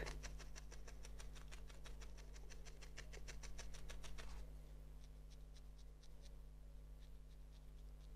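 Barbed felting needle jabbing wool into a foam pad in a quick, even run of soft stabs that thins out to occasional pokes after about four seconds, as the wool is shaped into a paw.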